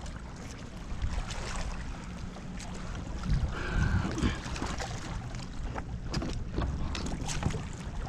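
Wind rumbling on the microphone and water lapping around a fishing kayak, with scattered small clicks and knocks.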